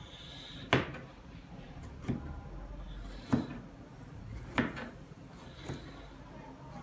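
Kitchen knife chopping through fish onto a board: five sharp knocks, about one every second and a quarter.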